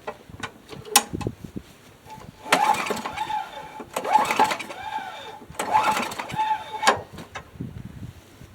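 Craftsman push mower being pull-started: three pulls on the recoil starter cord, each a rising-and-falling whir as the engine cranks over, and it does not catch. The owner puts the no-start down to fuel flooding the spark plug.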